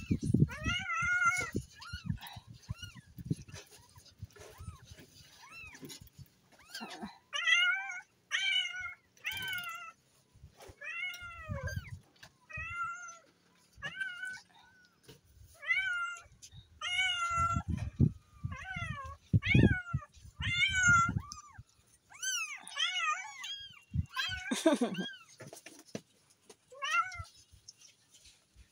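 Newborn kittens, eyes not yet open, mewing over and over in short, high cries that rise and fall in pitch, the calls of kittens seeking their mother's milk. Dull thumps from their crawling and the sheet beneath them come and go among the mews.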